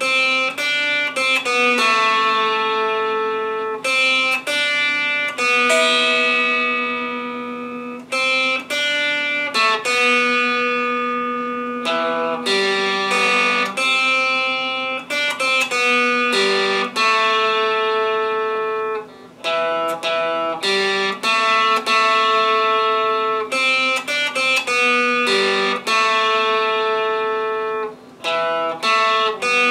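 Electric guitar playing a slow melody of single picked notes, each left to ring for a second or two.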